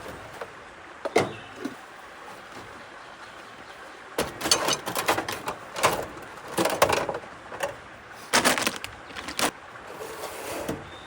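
Clattering knocks and clinks of gear being handled, bunched together through the middle, over a steady hiss.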